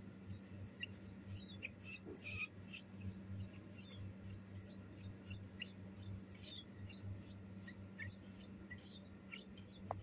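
Bulbul nestlings begging while being hand-fed: a faint, continuous run of short, high chirps, several a second, with a couple of brief rustles in the nest.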